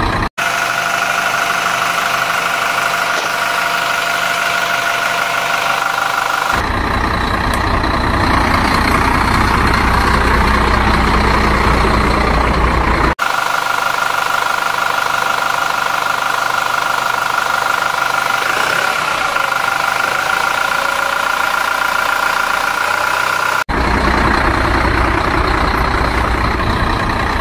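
WPL RC model trucks driving over dirt: a steady whine from their electric motors and gears. The sound changes abruptly about six, thirteen and twenty-four seconds in, and some stretches carry a heavier low rumble.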